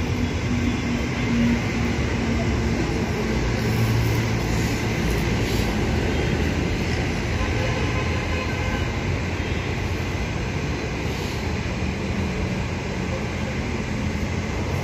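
Steady low rumbling background noise, with faint voices mixed in.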